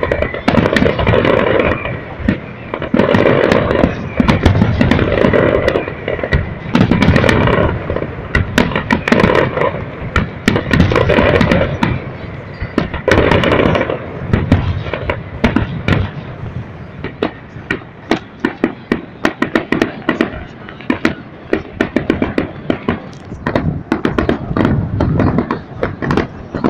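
Fireworks display: a dense, continuous barrage of bangs and crackling for the first dozen seconds or so, thinning out to scattered sharp cracks and pops in the second half.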